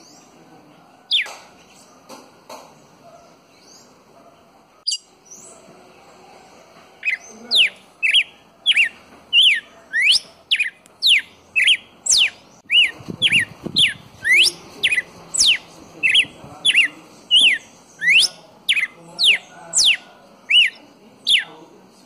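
Red-cowled cardinal singing: a few scattered chirps, then from about seven seconds in a fast run of loud, sharp whistled notes sweeping up and down, about two a second, for some fifteen seconds.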